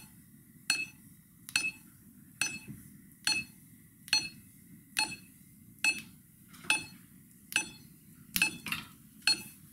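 Smartphone metronome app ticking steadily at 70 beats per minute, a short pitched click each beat. A few lighter extra clicks come in near the end.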